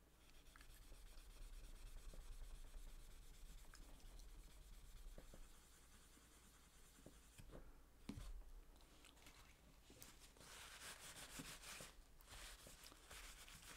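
Faint rubbing and scratching as a small steel three-jaw lathe chuck is cleaned by hand, with a few light metal clicks as it is turned. Near the end, a brisk stretch of rubbing as the chuck is wiped with a tissue.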